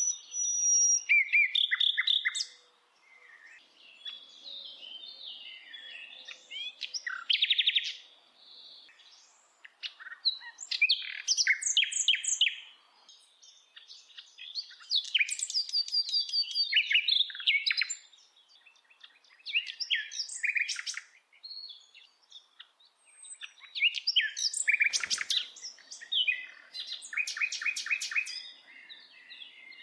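Songbird singing in varied phrases of chirps and rapid trills, coming in bursts of a few seconds with short pauses between them.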